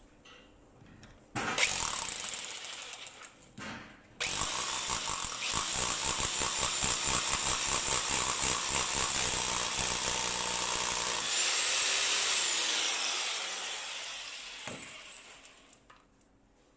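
Electric hammer drill boring through a plastic edge strip into concrete. A short first burst, then about seven seconds of steady drilling with a rapid pulsing. The motor is then released and winds down with a falling whine.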